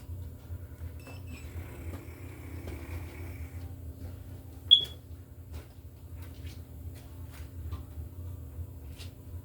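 A voltage tester gives one short, high-pitched beep about halfway through, over a steady low hum and faint handling clicks.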